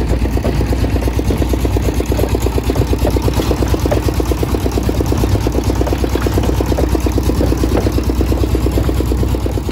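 An engine running steadily with a fast, even pulse and a heavy low rumble.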